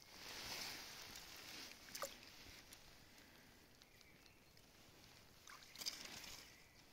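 Faint rustling of dry grass and dead leaves as a shed deer antler is handled. There is a small click about two seconds in and a sharper knock near the end.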